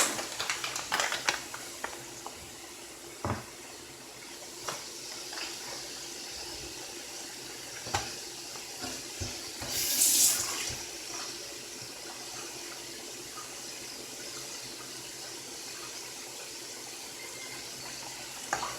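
Potato fries deep-frying in hot oil: a steady bubbling hiss, with a few light knocks and a louder rush of sizzle about ten seconds in.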